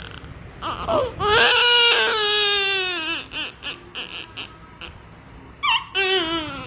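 Newborn baby crying: a long high wail about a second and a half in, then a run of short, broken sobs, then another wavering wail near the end.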